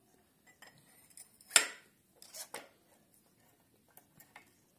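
Sharp metallic clinks and taps, the loudest about one and a half seconds in and a quick pair soon after, as a piston with new rings and its connecting rod are dropped through a tapered ring-compressor sleeve into a cylinder of a Honda D15B7 engine block.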